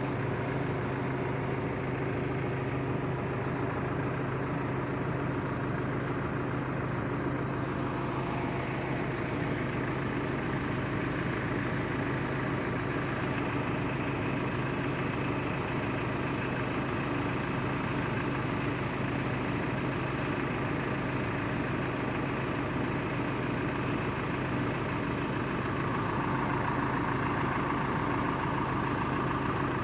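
Heavy diesel engine of construction machinery running steadily with a low hum. A higher tone joins near the end.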